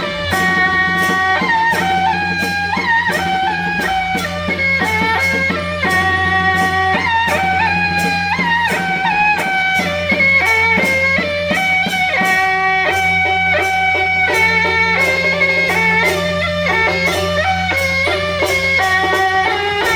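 Music: a melody of held, stepping notes over a steady low drone, with a regular percussion beat.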